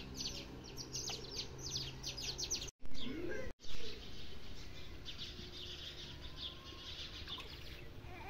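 Small birds chirping, a quick run of short high chirps repeated over and over, with a low steady hum underneath for the first few seconds. The sound cuts out twice, briefly, about three seconds in, then the chirping carries on more faintly.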